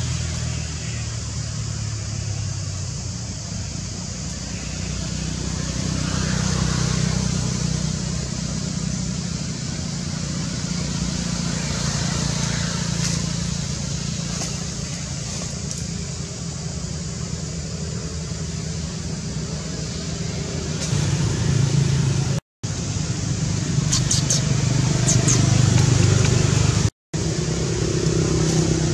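Steady low motor-vehicle engine hum over a background hiss. It grows louder near the end and cuts out completely for a split second twice.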